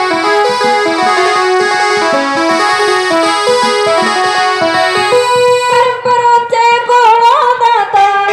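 Music: a keyboard plays a quick, stepping melody, then about six seconds in a singer comes in with long, wavering held notes.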